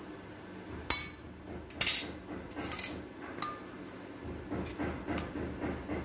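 Steel spoon clinking against a stainless steel bowl as rusks are turned in sugar syrup: a sharp clink about a second in, a quick cluster near two seconds and another near three, then lighter scattered taps.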